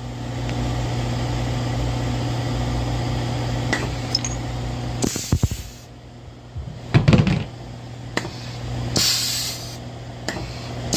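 Mori Seiki MV-40 machining center's tool clamp/unclamp cylinder cycling after being freed from sticking: a steady machine hum, then short hisses of air and a few clunks as the spindle's tool releases and clamps again.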